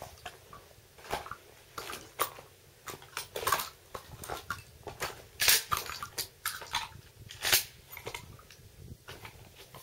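A string of irregular short clicks, knocks and rustles close to the microphone, the loudest about halfway through and again near the end, like handling noise; no gunshot.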